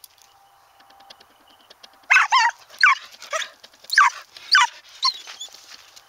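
An animal's high whining yelps: about six short cries, each falling in pitch, starting about two seconds in.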